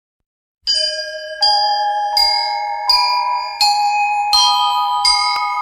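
Music intro of bell-like chime notes: seven notes struck about three-quarters of a second apart, each left ringing so that they overlap.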